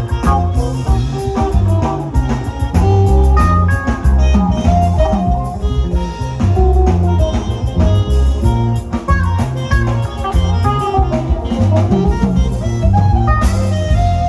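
Live band playing an instrumental piece: a guitar melody over stepping bass notes and a drum kit keeping time.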